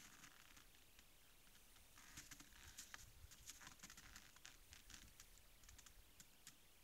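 Faint, scattered clicks and crackles of a moose licking and gnawing at a salt lick in the snow, thickest in the middle stretch.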